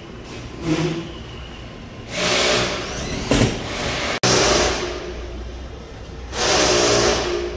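Handheld cordless power drill running in three short bursts of about a second each, with a sharp knock between the first two.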